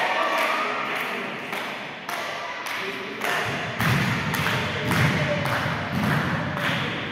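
A steady run of thuds and knocks, about two a second, echoing in a large hall, with deeper, heavier thuds joining about four seconds in.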